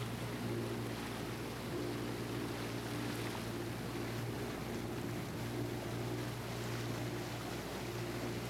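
Motorboat engine running steadily under way, a low even hum with a few steady higher tones, over a constant rush of wind and water.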